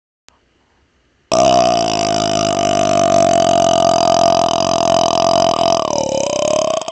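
A man's long, loud burp, starting about a second in and held at a steady pitch for about six seconds, dipping briefly near the end and breaking up into a fluttering rattle as it trails off.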